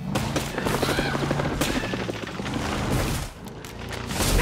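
Cartoon action sound effects: a rapid run of clattering bangs and booms over a low rumble, easing off a little after three seconds.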